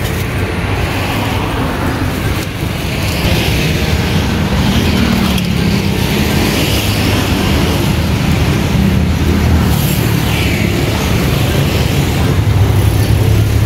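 Steady road traffic: motor vehicles passing on the street with a continuous low engine rumble, which gets a little louder about three seconds in.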